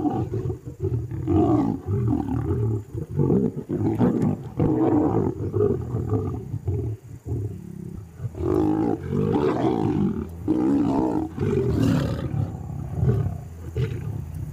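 Lions growling and roaring at each other in a squabble over a kill, the growls coming one after another with a short lull about seven seconds in.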